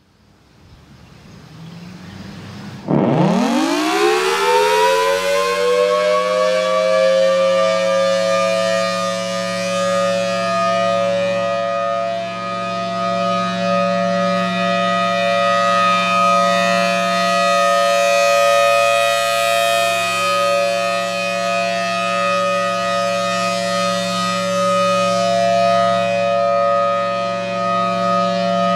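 Federal Signal Thunderbolt 1000AT outdoor warning siren starting up and sounding its steady alert tone. A low hum builds over the first few seconds, then about three seconds in the pitch sweeps up quickly and settles into a steady two-note chord from the 5/6 port ratio. The chord swells and fades slowly as the horn rotates.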